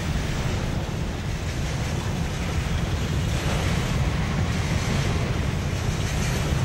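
Rolling-highway freight train, lorries carried on low-floor rail wagons, passing close by: a steady low rumble with a rushing noise over it.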